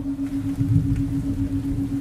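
A steady low theta-wave tone pulsing several times a second, mixed over a rain recording with a low, uneven rumble.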